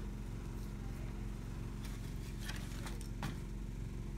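Steady low hum with a few faint, soft clicks, three or so across the span.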